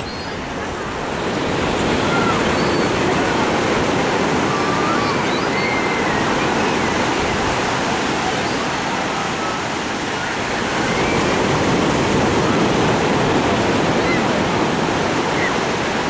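Ocean surf breaking and washing onto a sandy beach, a steady rush that swells twice. Faint distant voices and shouts of swimmers carry over it.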